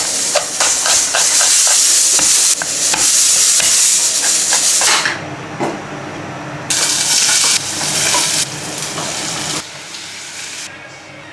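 Food sizzling in a hot pan as it is stirred, with the utensil clicking against the pan. The sizzle stops and starts abruptly several times, in short cuts.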